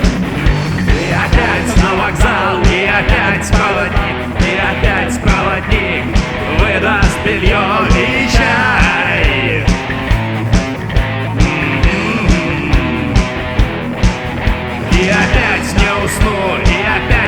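Rock song with singing and guitar over a steady drum beat, the kick drum hitting about twice a second.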